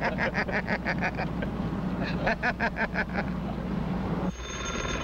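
A man laughing hard in rapid ha-ha-ha pulses, over the steady hum of a car's engine and road noise inside the cabin. Near the end the laughter and hum cut off and a steady electric bell starts ringing.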